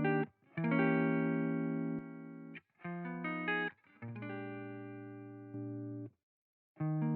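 Electric guitar playing a series of chords through an analog-modeled graphic EQ and clean-boost plugin. Each chord rings for one to two seconds before it is cut off, with brief silences between them and a longer pause near the end.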